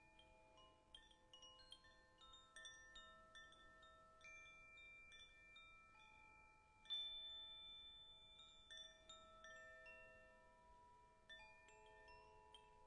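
Faint chimes tinkling in many quick, overlapping high notes over lower notes that ring on. About seven seconds in, one louder high note rings out and holds.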